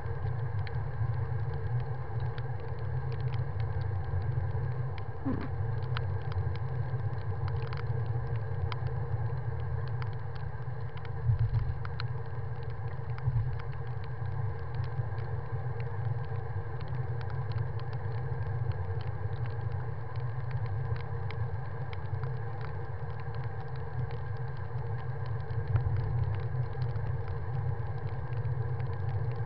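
Steady low rumble of wind and tyre noise picked up by a handlebar-mounted camera on a moving bicycle on wet asphalt, with frequent small clicks and rattles.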